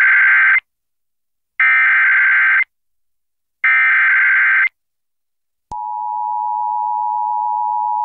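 Emergency Alert System SAME header: the end of one screechy digital data burst and then two more, each about a second long with a second's gap between them. About two-thirds of the way in, the steady two-tone EAS attention signal begins, marking the start of a severe thunderstorm warning broadcast.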